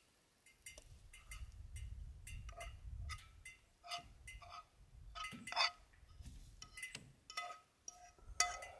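A utensil scraping and tapping against a frying pan as eggs and sausage are served out onto a plate: a string of short clinks and scrapes, with the pan ringing briefly after the harder taps.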